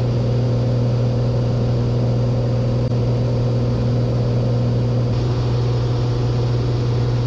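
Cessna 182's six-cylinder piston engine and propeller droning steadily at climb power, heard from inside the cabin as a constant low hum with a steady tone above it.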